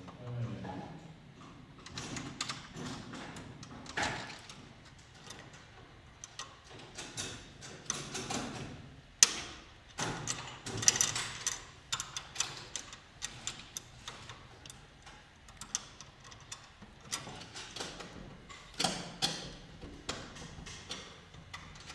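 Irregular clicks, taps and knocks of hand work on fittings, with one sharp, loud knock about nine seconds in.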